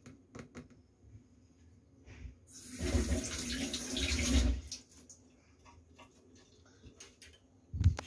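Water running from a tap for about two seconds, starting about two and a half seconds in and stopping abruptly. A short dull thump near the end.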